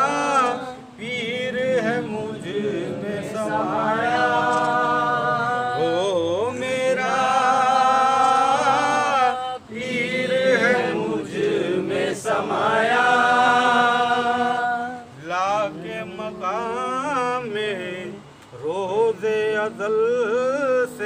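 Men singing a Sufi devotional kalam (sufiyana kalam), drawing out long melismatic notes that waver and glide in pitch, with short breaks between phrases.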